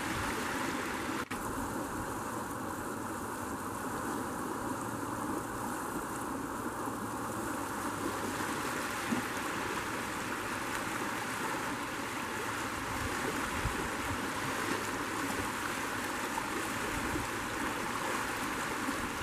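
Steady rushing of flowing creek water, with a momentary dropout about a second in.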